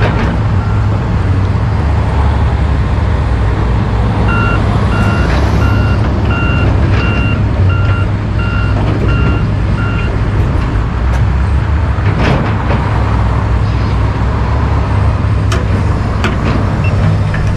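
Heavy diesel construction machinery, track excavators among them, running steadily with a deep engine rumble. A backup alarm beeps about one and a half times a second for some six seconds, and a few sharp knocks come later on.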